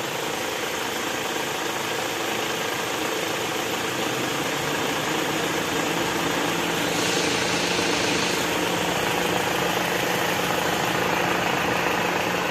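Opel Astra engine idling steadily with all electrical consumers switched on, loading the alternator. This is a test run after the seized alternator overrunning clutch pulley, blamed for the drive belt whistle, was replaced.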